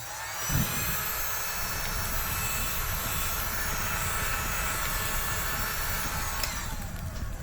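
Heat gun blowing hot air in a steady rushing hiss, starting just after the beginning; the high hiss drops away about six and a half seconds in.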